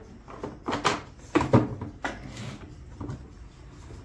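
Handling knocks and clunks from a harmonium's box case as its lid is opened and lifted off: several sharp knocks in the first second and a half, a short scraping rub about two seconds in, and a lighter knock near the end.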